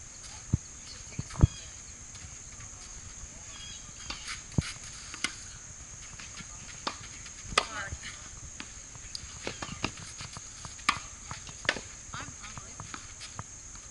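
Tennis rally on a hard court: sharp pops of rackets striking the ball and the ball bouncing, irregularly spaced a second or a few seconds apart. The loudest pop is about a second and a half in.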